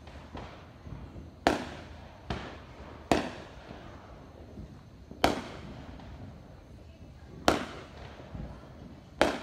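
Distant aerial fireworks bursting: a series of sharp bangs at uneven gaps of one to two seconds, each trailing off in an echo.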